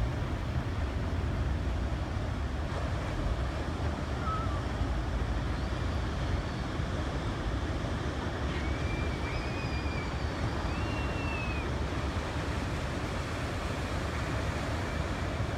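Pacific surf breaking and washing up a sandy beach: a steady rush of noise with a deep, unbroken low rumble.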